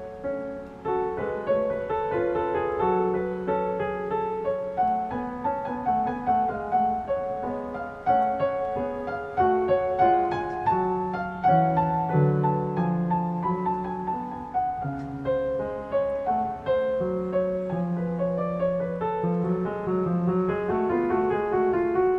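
Background piano music: a steady flow of struck notes that fade, a melody over lower held notes.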